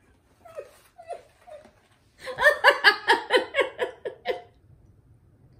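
A woman laughing: a few short chuckles in the first second and a half, then a run of about ten quick giggles from about two seconds in.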